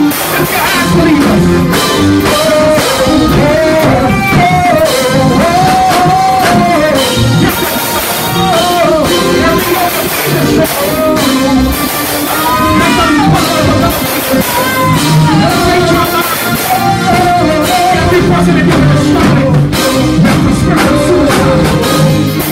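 Live church praise music: a band with drums and keyboard playing a steady beat, with a voice singing a gliding, wavering melody over it.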